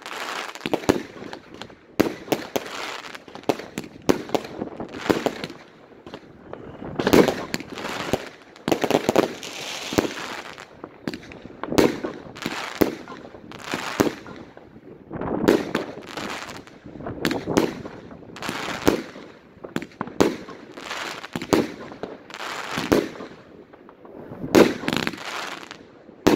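Consumer fireworks cake (a multi-shot battery, the Piromax Hydra) firing aerial shells one after another. Each launch and burst is a sharp crack, coming in volleys about one to two seconds apart with brief lulls between them.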